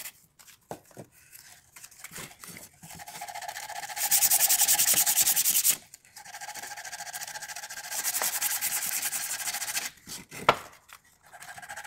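Sandpaper rubbed by hand over a weathered wooden lantern frame in quick back-and-forth strokes. The sanding comes in long stretches, loudest about four to six seconds in, pauses briefly, then starts again. A single sharp knock comes about ten and a half seconds in.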